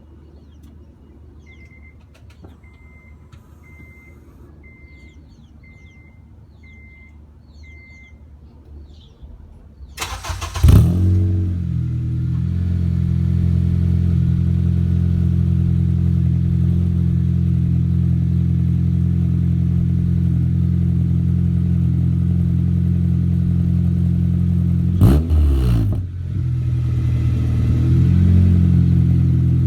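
Acura CSX Type-S's K20 2.0-litre four-cylinder engine, straight-piped through a K-Tuned race header and turndown muffler with no catalytic converter or resonator, cranking and catching on a cold start about ten seconds in. It flares up, then settles into a steady idle, with one quick rev blip later on. Before it starts, a faint beep repeats about once a second.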